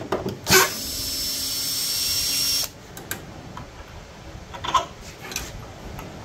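Makita cordless drill backing a screw out of a wooden table apron: a sharp knock, then the drill motor runs with a high whine for about two seconds and stops abruptly. A few short light clicks follow.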